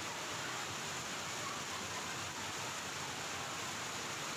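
Steady rush of floodwater flowing over the ground.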